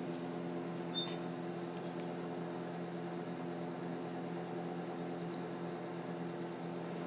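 Steady low mechanical hum of several pitches, with a faint light click about a second in.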